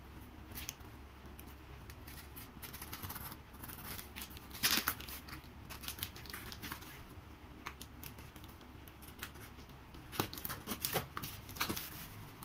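A small blade slitting the packing tape and cardboard of a shipping box: irregular scraping, crackling and clicks, loudest about halfway through, with a quick run of sharp clicks near the end.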